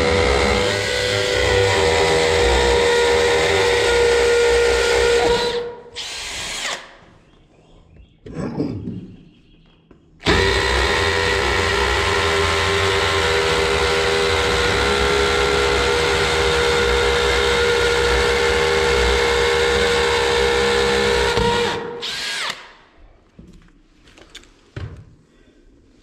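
Makita 18-volt cordless drill boring into a painted concrete-block wall. It gives a steady motor whine in two long runs, about six and about eleven seconds, with a short burst between them.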